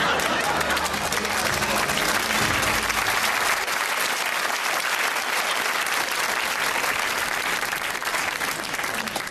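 Audience applauding, dense steady clapping that eases off near the end.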